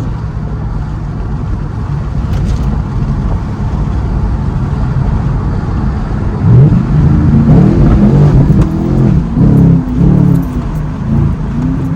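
Tuned Camaro SS's L99 6.2-litre V8 heard from inside the car, running steadily, then opening up under hard acceleration about six and a half seconds in. Its pitch climbs and drops back several times as the transmission shifts up.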